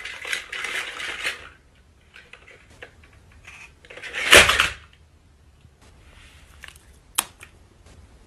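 Knife-on-plate clatter of a cake being cut: scattered clinks and scrapes, with a louder noisy burst about four seconds in and a sharp click near the end.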